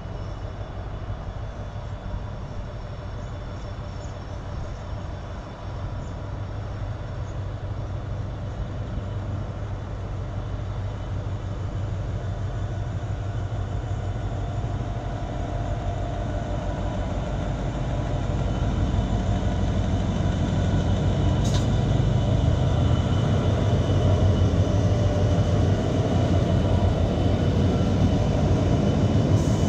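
SCT-class diesel-electric freight locomotives SCT001 and SCT009 running as they draw near and pass close by, a low engine hum that grows steadily louder and is loudest near the end.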